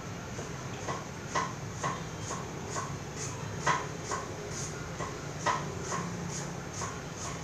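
Steady low hum with light, evenly spaced ticks about twice a second.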